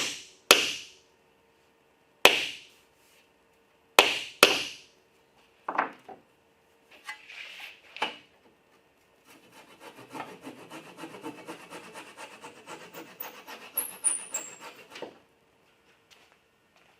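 Hammer or mallet striking wood: four sharp blows in the first five seconds, a few lighter knocks after them, then about five seconds of quick scraping strokes on wood that stop suddenly.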